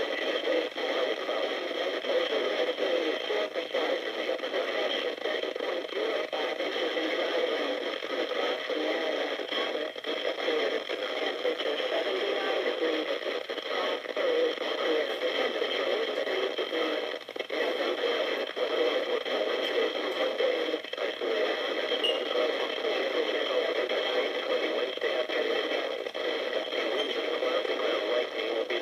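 Weather radio receiver's speaker putting out steady crackling static with no voice: the NOAA broadcast has dropped out partway through the forecast, leaving only receiver noise.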